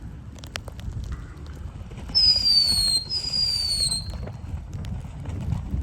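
Cuckoo fountain firework going off: two falling whistles, each just under a second long, one right after the other about two seconds in, over scattered crackling pops. Wind rumbles on the microphone underneath.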